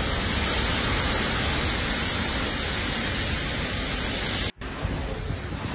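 Heavy rain and strong wind of a severe thunderstorm, a dense, steady rush of noise. About four and a half seconds in, the sound cuts out for an instant and a different, gustier recording of wind and rain takes over.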